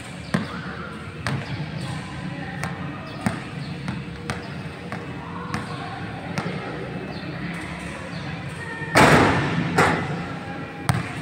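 A basketball being dribbled on an indoor gym court, one sharp bounce about every second, echoing in the large hall. About nine seconds in comes a loud clattering hit as a shot strikes the backboard and rim.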